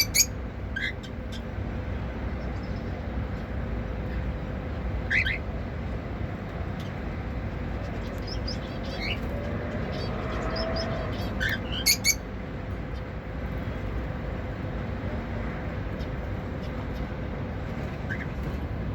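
Cockatiels giving short, sharp chirps, a few at a time and scattered through the stretch, over a steady low background hum.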